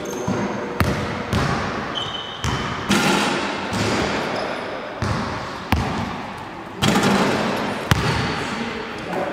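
Basketballs bouncing on the gym floor and slapping into players' hands during a passing drill, a sharp bang about once a second that rings on in the big hall. A few short high squeaks come in between the bangs.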